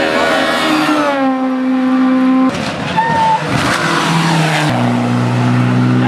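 Rally car engines at close range: a Suzuki Swift rally car's engine note drops as it brakes and shifts down for a bend, then holds steady. After a sudden change about two and a half seconds in comes a rougher stretch with tyre noise, and after another sudden change near the end a steady engine drone from a Mitsubishi Lancer Evo X.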